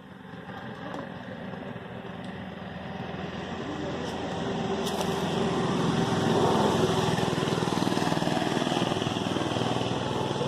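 A small engine running, growing louder over the first six seconds and then holding steady at an even pitch.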